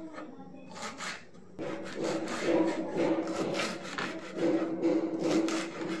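Kitchen knife slicing green chillies on a wooden chopping board: a quick run of short cutting strokes, the blade scraping and tapping on the wood. A steady low hum sits underneath through the middle.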